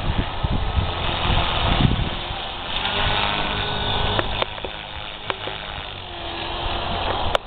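Radio-controlled collective-pitch helicopter in flight, its rotor and drivetrain noise rising and falling as the collective pitch is pumped. There are a few sharp clicks. This is the bad noise the pilot is chasing, which appears under pitch pumps and full collective throws.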